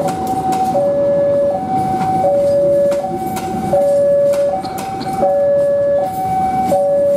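Two-tone electronic warning alarm stepping steadily between a low note and a higher note, each held about three-quarters of a second. Under it, the Jayakarta Premium passenger coaches rumble past, with wheels clicking over rail joints.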